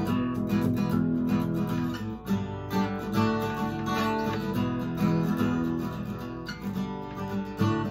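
Steel-string acoustic guitar being strummed, chords ringing on between the strokes.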